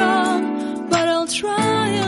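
Background song: a sung melody over strummed acoustic guitar.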